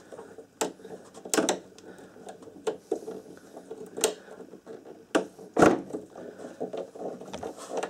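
Hand screwdriver turning a screw into the plastic mounting on an electric lawnmower's capacitor motor, with irregular clicks and knocks of the tool and parts being handled. The loudest knock comes a little over halfway through.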